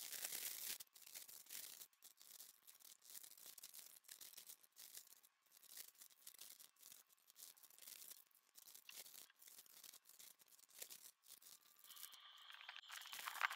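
Plastic packaging and small zip bags of resin diamond-painting drills being handled: a soft, irregular crinkling with the tiny drills rattling inside the bags, loudest at the start, with a sharper sound near the end.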